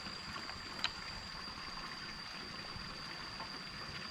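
Water trickling and splashing steadily into a fish pond, with a thin steady high-pitched tone over it and one sharp click just under a second in.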